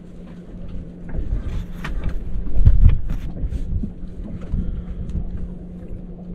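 Wind buffeting the microphone, strongest about halfway through, with scattered clicks and rustles from a tortilla fish wrap being handled, over a steady low hum.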